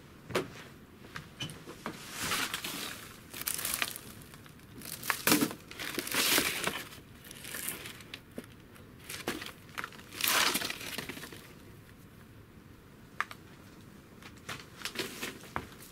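Paper and plastic record sleeves and loose paper debris crinkling and rustling as they are handled, in several separate bursts with a few light knocks in between.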